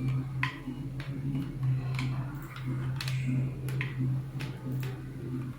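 Light irregular clicks and taps, about one or two a second, over a steady low hum.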